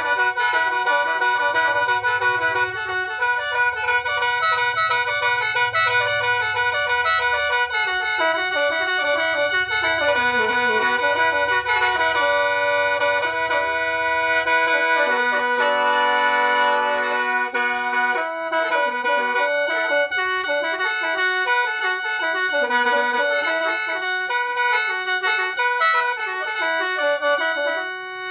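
Khaen, the Lao bamboo free-reed mouth organ, played solo: steady drone notes held under a quick, moving melody. The sound dips briefly right at the end.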